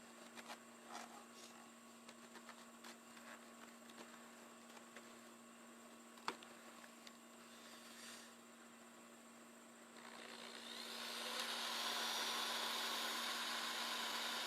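A few faint handling clicks and taps, then about ten seconds in a power drill spins up and runs steadily: a small bit pre-drilling a pilot hole for a screw in a longhorn taxidermy mount.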